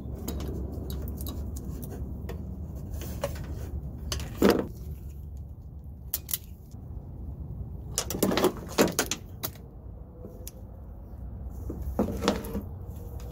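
Clicks and rattles of hand tools and wires: pliers handled and squeezed while terminals are fitted onto wire ends, with a single sharp snap about four seconds in, a cluster around eight to nine seconds, and another near twelve seconds, over a steady low rumble.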